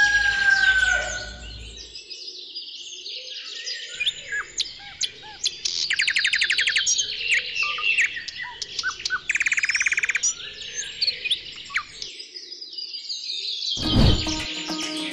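Songbirds chirping and trilling, with two fast rattling trills in the middle. A rooster's crow trails off about a second in, and a whoosh near the end leads into music.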